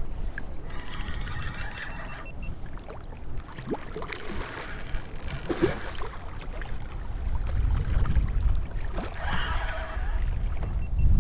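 Wind rumbling on the microphone with water sloshing around a kayak, and short bursts of hiss about a second in and again near the end.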